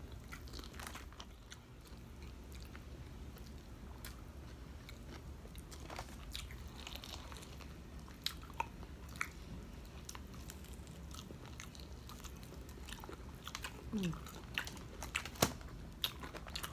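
Eating sounds: irregular crisp crunches and clicks from biting and chewing a breaded, deep-fried pork chop and vegetables.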